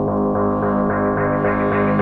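Background music with a quick, steady pulse of repeated notes.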